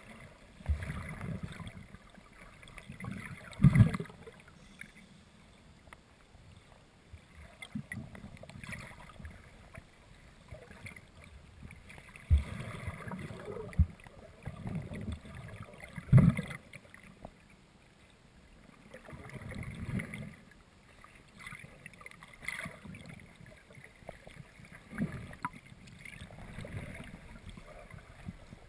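Muffled water sloshing and rushing around a GoPro's waterproof housing as it is moved through shallow water, swelling and fading every few seconds, with a few sharp knocks against the housing.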